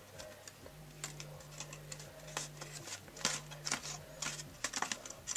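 Stiff cardstock rustling and crinkling in the hands as two hot-glued pieces are held pressed together, with small scattered clicks and crackles. A faint low hum sits under it from just under a second in until about four and a half seconds.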